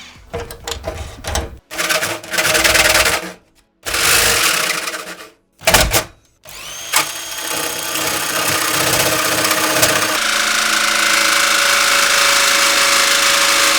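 Electric jigsaw cutting through the sheet metal of a PC case. It runs in several short bursts that start and stop, then in one longer steady run from about halfway in, with a high motor whine over the rasp of the blade.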